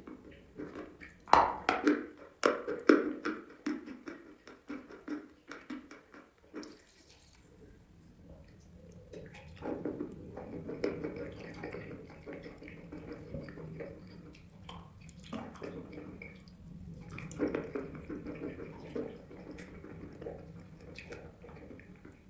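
Close-up chewing of chalk: a run of sharp crunches and snaps in the first few seconds, then softer, continuous wet chewing and mouth sounds.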